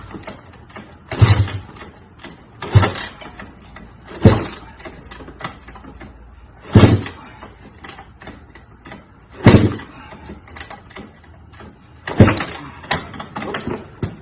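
2006 KTM 300 XC-W two-stroke engine being kick-started without choke: about eight kicks, each a short burst of the engine turning over, a second or two apart, with the engine not catching.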